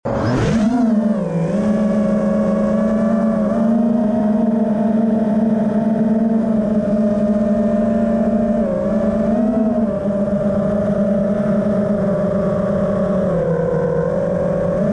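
FPV racing quadcopter's brushless motors (Hobbywing XRotor 2207) and propellers buzzing in flight, a steady high hum that swells up in pitch with throttle punches about a second in and a few times after, and sags briefly near the end.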